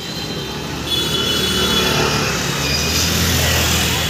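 Street traffic: motorcycle and small-truck engines running close by, with a steady low engine hum that gets louder about a second in.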